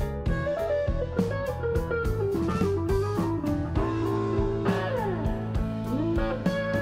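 Music: guitar playing notes that slide up and down over a steady drum beat.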